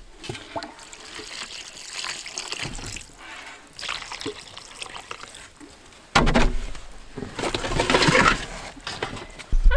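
Husky feed bowls being filled by hand: chunks of meat dropped into stacked metal bowls of dry pellets, with handling noise that gets much louder about six seconds in.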